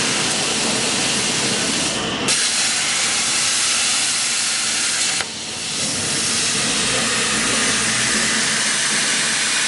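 Plasma cutting torch of a CNC plasma machine cutting, a loud steady hiss. It changes briefly about two seconds in and dips for a moment about five seconds in before running on.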